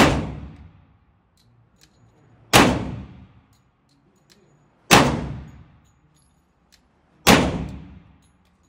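Four shots from a 10mm Glock 40 pistol, fired slowly and evenly about two and a half seconds apart, each followed by about a second of ringing decay.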